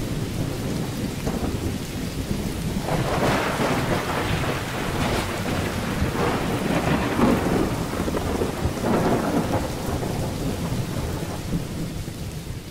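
Thunderstorm: steady rain hissing with rolling thunder rumbling over it, swelling louder in the middle and dying down near the end.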